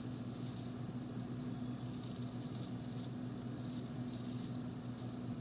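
A spoon stirring and scraping a thick fruit mixture of chopped apple and apricot preserves in a small saucepan, a few soft wet strokes, over a steady low hum.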